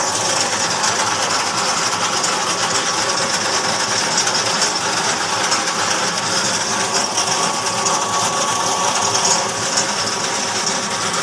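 Homemade ice cream mixer running: an electric motor and belt drive turning the geared stirring shaft and canister, a steady mechanical whir with a thin steady whine. It is on a test run with water in the canister in place of ice cream mix.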